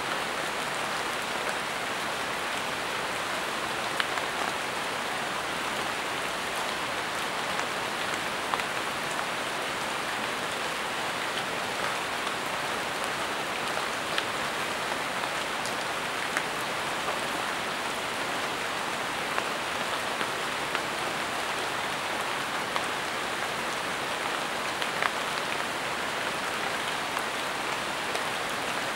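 Steady rain falling, an even hiss, with scattered louder single drops hitting close by.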